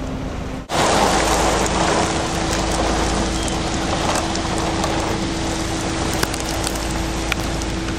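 Heavy rain and wind noise, beginning abruptly less than a second in, with many small raindrop ticks scattered through it and a steady low hum underneath.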